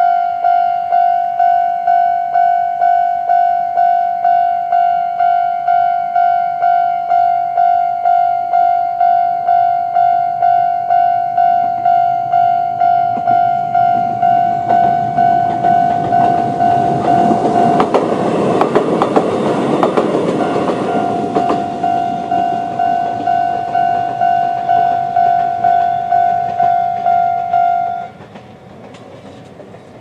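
Japanese level crossing alarm of the older standard type, ringing a steady electronic tone in pulses about twice a second. In the middle, a Konan Railway 7000-series electric train passes over the crossing; its wheel noise swells for several seconds and briefly drowns the bell, then fades. The alarm cuts off suddenly near the end as the crossing clears.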